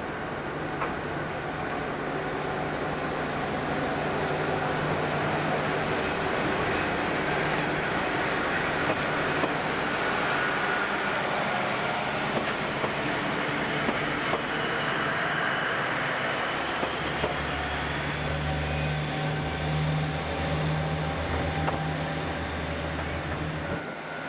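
A Kominato Railway diesel railcar running on the line: wheel-and-rail noise builds over the first few seconds, then a steady low engine hum comes in during the last several seconds. The sound drops away abruptly just before the end.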